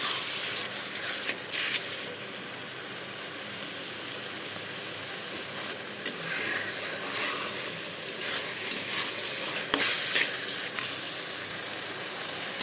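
Sliced boiled onion and ginger-garlic paste sizzling in oil in a kadhai. A spatula scrapes and stirs in bouts, with a few sharp knocks against the pan.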